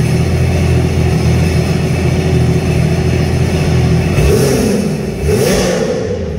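Sea-Doo GTS 130 jet ski's Rotax three-cylinder four-stroke engine idling steadily, then revved twice, about four and five seconds in, rising to near 6000 RPM.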